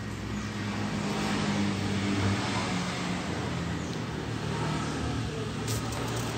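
An engine running, a low steady hum that swells a little about two seconds in.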